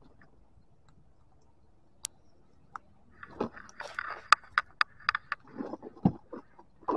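Handling noises at a zippered nylon bag. After a quiet start with a single tick, there are about four seconds of rustling with a quick run of sharp clicks and knocks and one dull thud.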